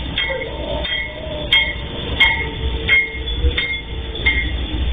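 Heavy diesel freight train passing, with several locomotives leading: a steady low engine rumble and steel wheels on the rails, a faint held squeal tone, and a sharp click about every two-thirds of a second.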